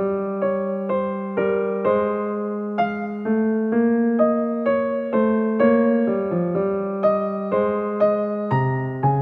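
Background piano music: a calm melody of single notes struck about twice a second.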